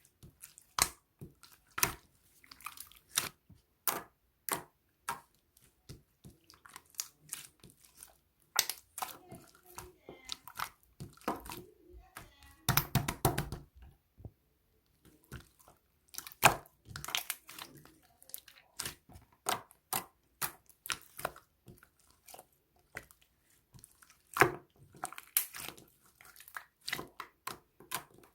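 Slime being squished and worked by hand, giving irregular sharp clicking pops as air pockets burst, with a denser spell of crackling about halfway through.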